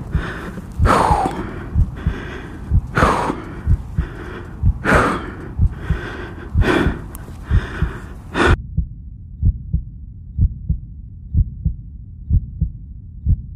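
A low, steady heartbeat thudding under the heavy, gasping breaths of a motorcyclist lying hurt after a crash, a breath every couple of seconds. About two-thirds of the way through the breathing stops and only the heartbeat goes on.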